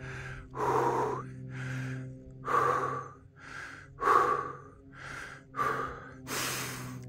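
A man's heavy breathing from the exertion of a steep uphill hike: about eight hard breaths, in and out in turn, roughly one a second.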